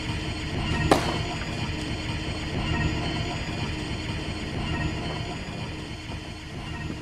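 Suspenseful synthesized film score with a steady low drone, and one sharp hit about a second in.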